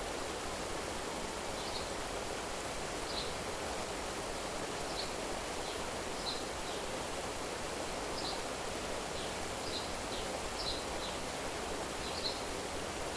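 Steady rushing outdoor nature ambience, like running water, with short high chirps scattered through it about once a second.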